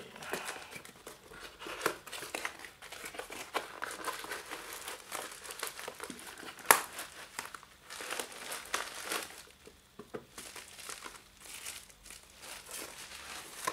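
Hands handling packaging: irregular crinkling and rustling of a cardboard box and black plastic wrapping as an item is pulled out and unwrapped, with a sharp snap about seven seconds in.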